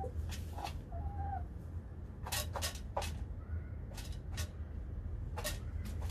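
Domestic hens foraging in wood shavings and feed trays: scattered, irregular pecking and scratching clicks, with a short soft hen note about a second in, over a steady low hum.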